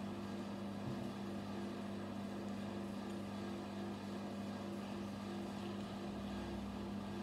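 Steady low machine hum with a fainter tone above it that pulses on and off; now and then a faint click as small plastic Lego pieces are handled.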